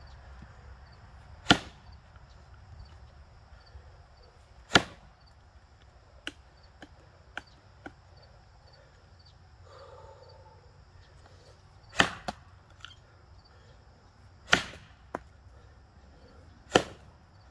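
Axe chopping into a box elder log: five heavy strikes a few seconds apart at an uneven pace, with a long pause in the middle, and a few lighter knocks between them.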